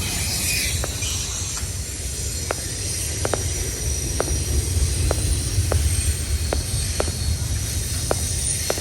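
Freight train rolling past: a steady low rumble with faint sharp clicks every half second to a second.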